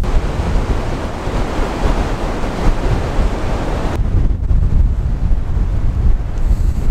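Strong wind rushing through the forest treetops and buffeting the microphone with a deep rumble. The rushing is fuller for about the first four seconds, then drops back, leaving mostly the low rumble.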